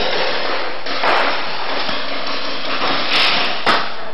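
Paintball markers firing: a few sharp cracks about a second in and around three seconds, the loudest just before the end, over a steady hiss.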